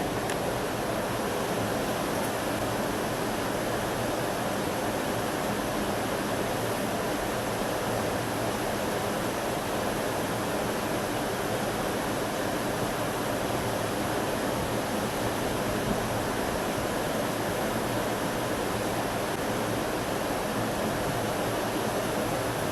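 Steady rush of flowing river water, an even unbroken hiss with no gusting.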